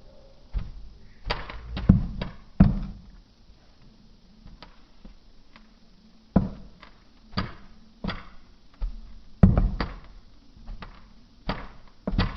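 Kinetic sand being dropped and squished: a series of about a dozen soft, dull thuds at uneven intervals, with the loudest ones about two seconds in and again near the middle.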